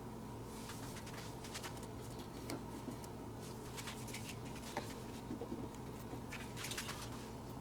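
Faint, scattered clicks and light scratching from small plastic parts being handled as wheels are fitted to a plastic container, over a low steady hum.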